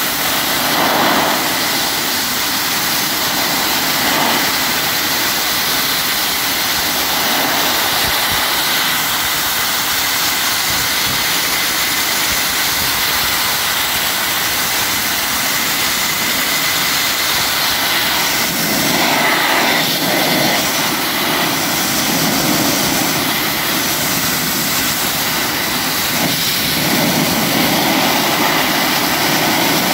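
Dustless (wet abrasive) blasting nozzle running continuously against rusty steel: a loud, steady hiss of compressed air, water and abrasive with a thin steady whistle in it. It swells briefly a few times as the nozzle moves across the metal.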